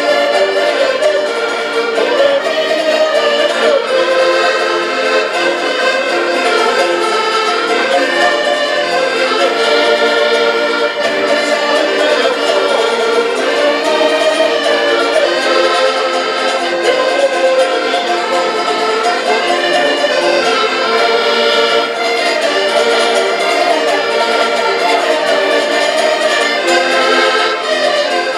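Several button accordions playing a lively folk tune together, their held reed chords changing every half-second or so.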